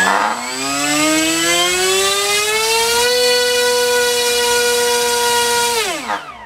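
NTM Prop Drive 2836 2200kV brushless motor spinning a 7x5 TGS sport prop on 3S: a whine that rises in pitch as the throttle comes up, holds steady for about three seconds, then falls away as it spins down near the end. The prop is too heavy a load for the motor, which is struggling to turn it and drawing about 81 amps on a 50 amp speed controller.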